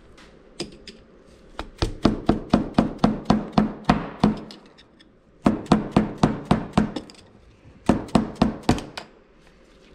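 A screwdriver tapped with a rubber mallet to drive an old crankshaft seal out of an aluminium crankcase. The taps come quick and sharp, several a second, in three runs with short pauses between.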